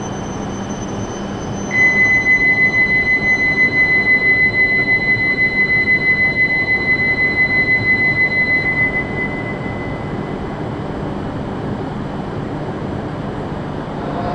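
Steady hum of an underground Shinkansen platform with an E7-series train standing stopped. About two seconds in, a high electronic signal tone starts, pulsing about three to four times a second, and it sounds for about seven seconds before stopping.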